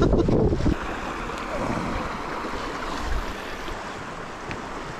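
Steady rush of a river, with wind gusts buffeting the microphone near the start and again about three seconds in.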